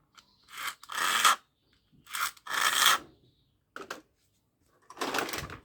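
Toy car pushed back and forth by hand over a rough surface, its wheels and body scraping in several short rasping strokes.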